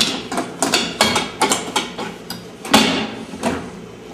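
Irregular metallic clicks and knocks of a car lockout tool being worked inside a pickup truck's door to reach the lock.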